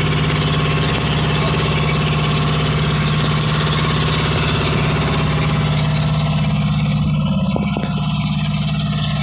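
A fishing boat's engine running steadily with a deep hum. Near the end the sound turns duller and a few light knocks come through.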